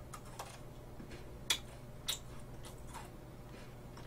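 A Pepero biscuit stick being bitten and chewed close to the microphone: a few sharp, crisp crunches, the loudest about a second and a half in, with a low steady hum underneath.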